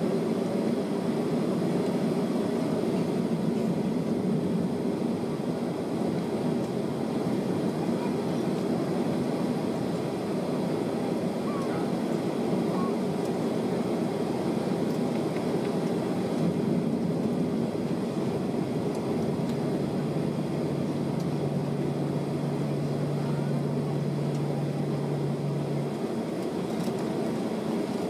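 Steady cabin noise inside a jet airliner taxiing: an even hum of the engines and air systems at taxi power. A lower steady tone joins about twenty seconds in and stops a couple of seconds before the end.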